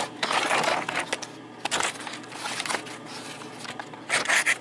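Rustling and scraping handling noise on the camera's microphone as the camera is moved and set in place, in several short bursts.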